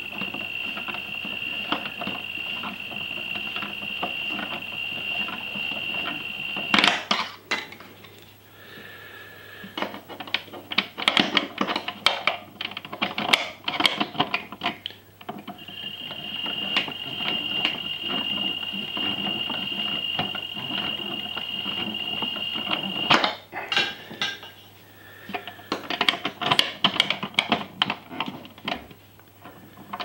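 Toy Miele Softtronic washing machine's small motor turning the drum with a steady high whine for about seven seconds, then stopping. A stretch of irregular clicking and rattling follows, then the motor whines again for about seven seconds, and more rattling comes near the end: the start-stop rhythm of a wash tumble.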